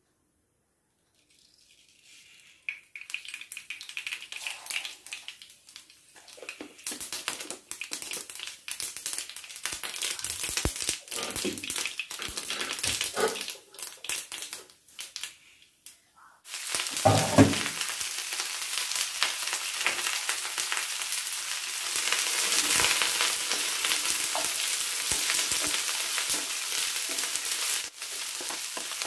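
Hot oil in a nonstick frying pan sizzles and crackles, growing busier. About halfway through, chopped brinjal, onion and green chilli are tipped in with a thud, and the pan goes into a loud, steady frying sizzle as the vegetables are stirred with a wooden spatula.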